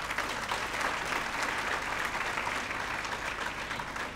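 A large crowd applauding with hand claps: a dense, steady patter of many claps that begins to die down near the end.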